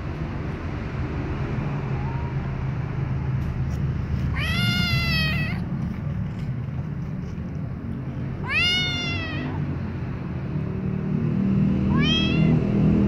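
A white kitten meowing loudly three times, each meow rising then falling in pitch, the first the longest, over a steady low background rumble.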